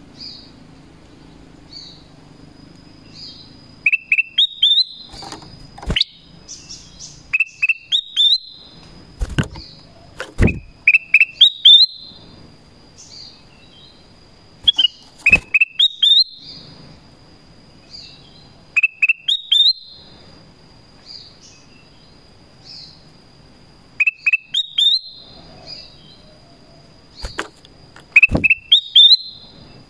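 Black-crested bulbul singing: short phrases of quick rising whistled notes, repeated every few seconds. A few sharp knocks come in between.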